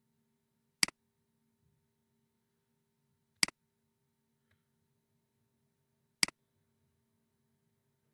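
Three sharp computer mouse clicks, a few seconds apart, each a quick double tick of the button pressing and releasing.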